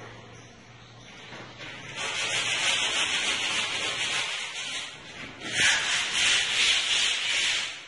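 A hand tool rubbed in repeated strokes over a wall coated in glossy Patiflor decorative paint, making a dry scraping hiss. It starts about two seconds in, eases briefly, then comes back stronger and stops just before the end.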